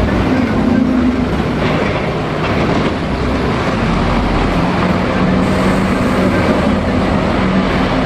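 Diesel engine of a double-decker bus running as the bus pulls away and drives past, a steady loud drone with road noise; the engine note sits lower in the second half.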